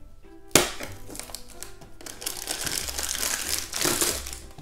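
Crinkling of a thin plastic blind bag and cardboard as an advent-calendar door is pulled open and the bag is drawn out, over light background music. There is a single sharp snap about half a second in.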